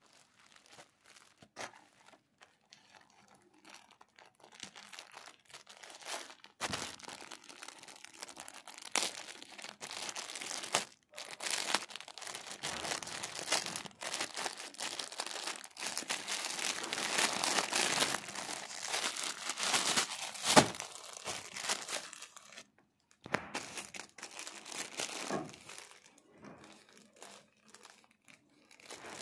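Plastic courier mailer bag being handled and torn open by hand: sparse light crinkles at first, then about six seconds in a long stretch of dense crinkling and tearing of the plastic, loudest through the middle, with a few sharp rips, dying away to occasional rustles near the end.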